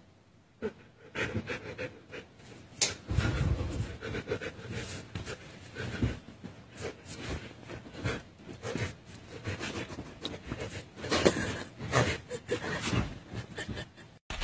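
Husky panting at close range, in irregular bursts.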